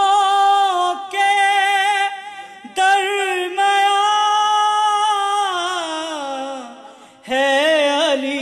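A man singing an Urdu devotional poem in praise of Ali (a manqabat) without accompaniment, holding long wavering notes. After two short phrases, a long note from about three seconds in slides downward, and a new phrase begins near the end.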